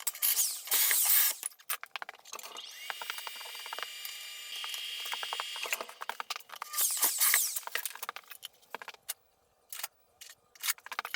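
Light metallic clinking and jangling, in clusters of sharp clicks with louder bursts about a second in and again about seven seconds in, and a high ringing tone in the middle.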